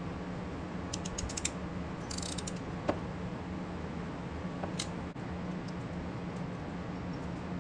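Hand wiring tools at work: a few sharp clicks of a ratcheting crimper and wire stripper on automotive wire, a brief scrape, and one louder knock about three seconds in, over a steady low hum.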